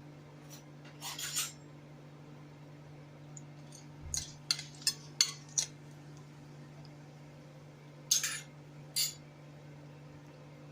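Metal utensils clinking against dishes in short, sharp knocks: one near the start, a quick run of about five around four to five seconds in, and two more near the end. A steady low hum runs underneath.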